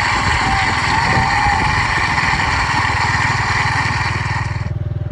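A motorcycle engine running at a steady idle, a fast even putter. The wider street noise above it drops away near the end, leaving only the engine.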